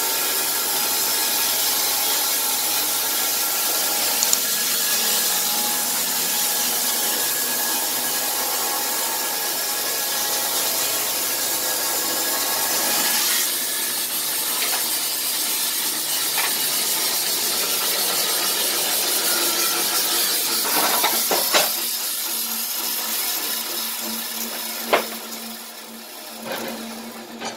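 Electric Wood-Mizer LT15 band sawmill running, its blade sawing through a log with a steady high hiss and whine. The sound dies away over the last few seconds, broken by a few sharp knocks.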